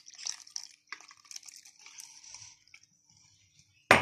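Milk being poured from a glass into a bowl of oat flour: a splashing trickle that fades out after about two and a half seconds, followed by a sharp knock just before the end.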